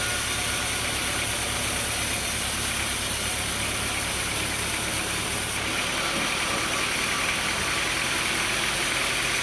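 An engine running steadily, its tone shifting slightly about five and a half seconds in.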